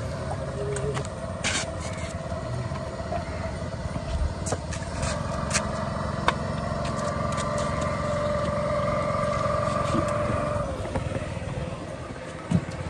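Small engine idling steadily with a whining hum that drops away about eleven seconds in, with a few sharp knocks over it.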